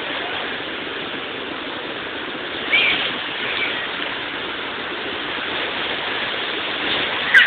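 Shallow beach surf washing over the sand and around the children, a steady rushing of water. A brief high-pitched cry comes about three seconds in and another near the end.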